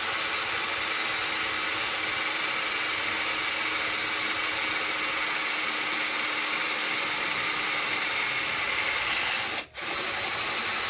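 Tramontina 10.8 V cordless drill/driver running steadily in drill mode as a 5.5 mm metal bit bores into a rusty steel strip. Near the end it stops for a split second, then runs on.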